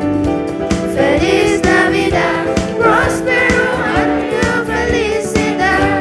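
Boys' school choir singing in chorus over instrumental accompaniment.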